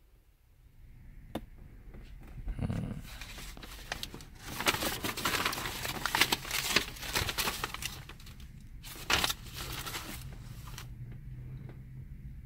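Close crinkling and rustling handling noise in dense, uneven spells for several seconds, over a faint low steady hum.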